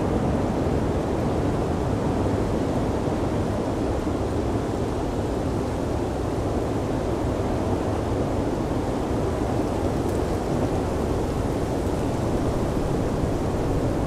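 Blizzard wind: a steady, deep rushing noise that holds even, without gusts or breaks.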